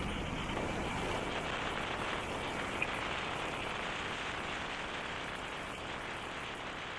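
Wind rushing over the microphone with road noise from a moving motorcycle: a steady hiss and rumble with no clear engine note, easing slightly over the seconds.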